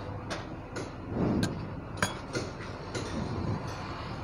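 Metal hand tools clinking and knocking against a Bock bus AC compressor's metal housing: a string of sharp, irregular clicks, with a louder, duller knock a little over a second in.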